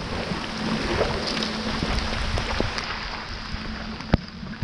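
Steady hiss of heavy rain and floodwater running across the road, with one sharp tap a little past four seconds in.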